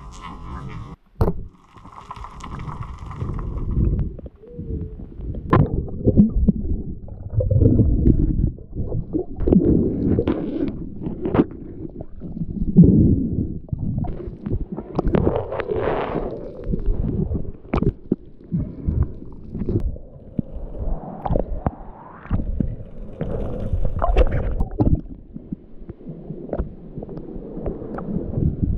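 Muffled underwater water noise picked up by a camera housing: low rumbling and gurgling that swells and falls irregularly as the diver moves, with many sharp knocks and splashes.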